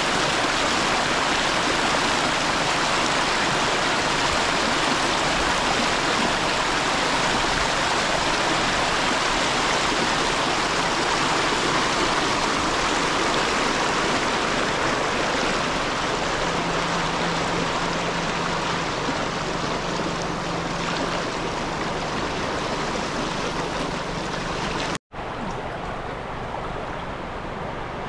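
Water of a large rocky stream rushing steadily over rocks. About three seconds before the end it breaks off for an instant, then comes back somewhat quieter.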